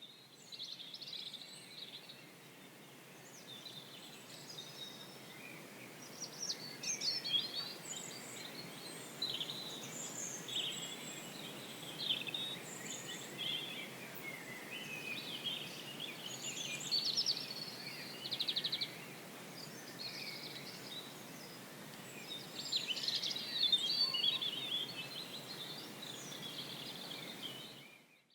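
Several songbirds singing, a busy run of short chirps, trills and warbles, over a steady low background hiss.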